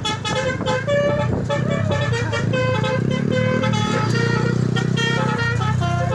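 Bus telolet horn (Basuri type) playing a quick tune of short notes stepping up and down in pitch, over the bus engine running; the engine rumble swells between about three and a half and five and a half seconds in.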